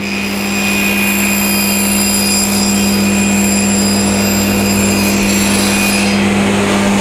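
Cabinet table saw running with its blade raised only about 2 mm, scoring the underside of a melamine board pushed across it: a shallow scribing cut to stop chip-out. Steady motor hum with a high whine that drops away about six seconds in.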